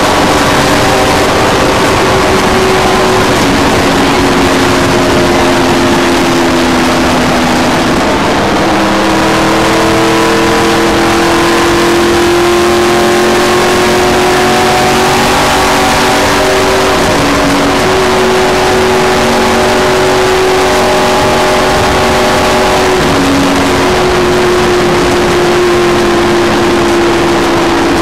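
Stock car's V8 engine running at speed on an oval track, loud and steady, its pitch wavering up and down a little as it laps.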